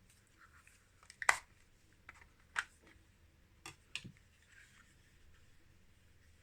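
Small hard objects being handled on a bench: a few sharp clicks and taps, the loudest a little over a second in, with faint scraping between them.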